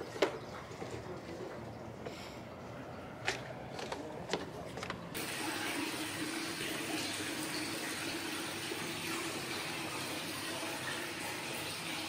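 Water pouring from a wooden spout into a full soaking tub, splashing steadily on the surface. It starts abruptly about five seconds in, after a few faint knocks.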